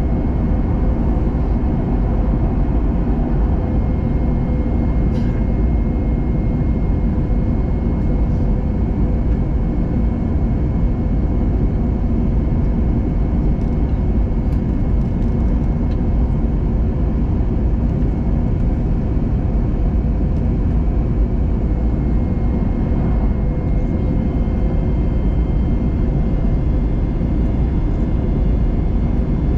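Steady roar inside an airliner cabin on descent to land, from engine and airflow noise, with a steady hum and a faint high whine running through it.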